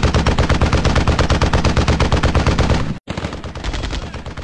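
Rapid, continuous machine-gun fire. It breaks off for an instant about three seconds in and resumes at once, a little quieter.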